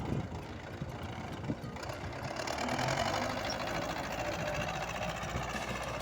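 Small engine of a snow-clearing machine running steadily, with a louder rushing noise joining about two seconds in.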